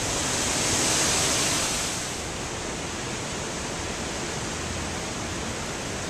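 Hurricane wind rushing through trees. A gust swells about a second in and eases off by two seconds, then the rush holds steady.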